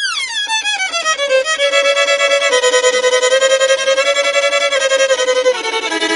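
Background music with a melodic lead that opens with a long downward glide in pitch, then settles into held notes over a quick, steady pulse.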